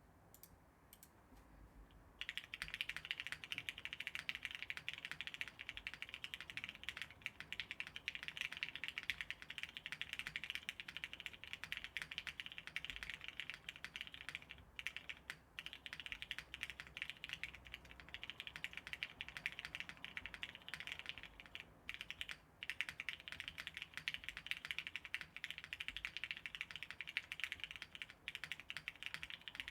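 Fast typing on a custom Calliope mechanical keyboard with lubed Hyperglide Cherry MX Black linear switches in a top-mounted polypropylene plate, with no foam inside. The keystrokes start about two seconds in and run on as a dense stream of clicks, with two short pauses around the middle.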